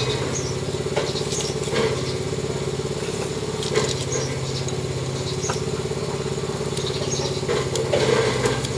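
A small engine running steadily, an even low drone, with scattered light clicks and taps of a knife cutting vegetables by hand over a pot.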